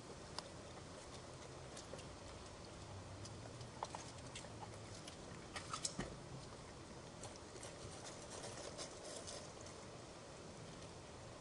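Faint scattered clicks and crunches of a raccoon feeding on birdseed, the loudest cluster about halfway through, over a steady low hiss.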